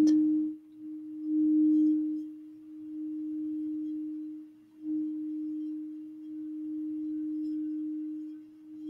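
Crystal singing bowl played by rubbing a wand around its rim: one steady, sustained tone that swells and eases several times.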